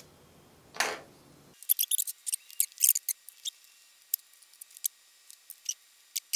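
Many quick, irregular small clicks and ticks, thin with no bass, from handling the plastic suction-cup bridge of a windshield chip repair kit on the glass.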